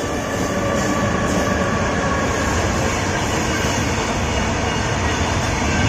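A moving train running steadily, with a continuous rumble of wheels on the track and a faint, steady whine above it.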